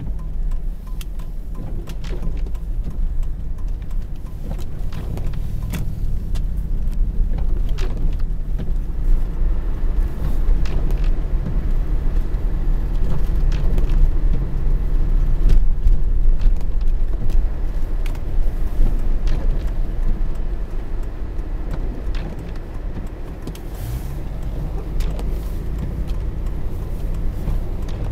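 Car interior driving noise on snow-covered roads: a steady low rumble of engine and tyres, with scattered short clicks and knocks. It grows somewhat louder toward the middle and eases off later.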